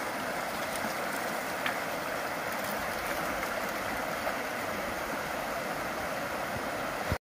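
Shallow creek running over rocks, a steady rush of water that cuts off suddenly near the end.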